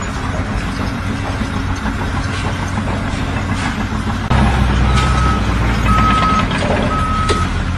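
Heavy vehicle's engine running, growing louder about four seconds in, then a reversing alarm beeping three times, about once a second.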